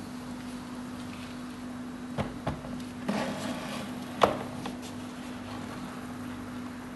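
Phlogius sp. 'Sarina' tarantula stridulating while disturbed: a few clicks about two seconds in, then a short dry hiss just after three seconds and a single sharp click about four seconds in, which is the loudest sound. A steady low hum runs underneath.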